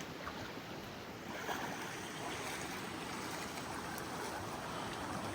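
Creek water flowing, a steady rushing sound.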